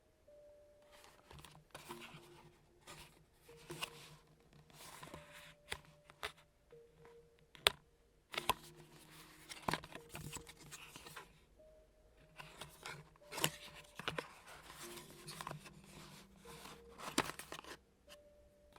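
Product packaging being opened by hand: an irregular run of tearing, rustling and sharp clicks.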